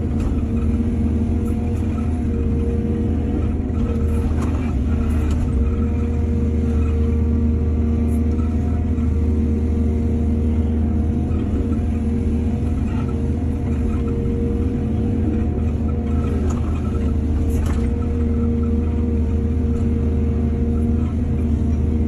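Excavator's heavy diesel engine running steadily, with its hum holding level throughout and a few light knocks.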